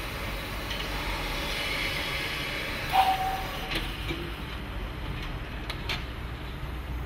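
Steam locomotive (GWR 6400 class pannier tank) hissing steam with its fire lit. About three seconds in there is a sharp metallic clank with a brief ringing squeal, followed by a few lighter knocks.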